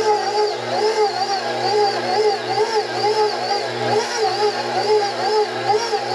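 KitchenAid stand mixer running on its lowest speed with the dough hook kneading a stiff pizza dough. The motor and gear whine wavers up and down about twice a second over a steady low hum.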